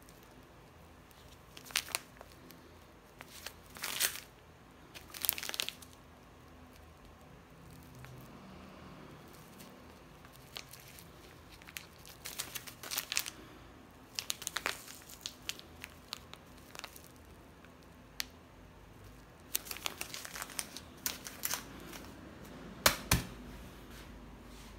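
Plastic pouches of sea salt crinkling as they are handled and turned over, in short irregular bursts, with the loudest crackle near the end.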